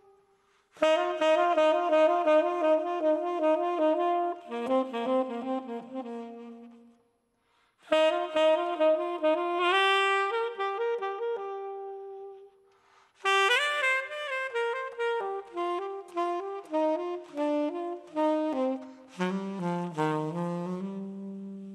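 Solo saxophone playing an unaccompanied jazz ballad line in three phrases, each broken off by a short pause; the last phrase steps down into the instrument's low register.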